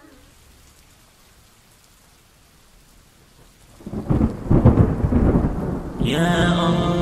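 Thunderstorm sound: a faint steady hiss of rain, then about four seconds in a loud clap of thunder that rumbles for about two seconds. Music with long held tones comes in about six seconds in.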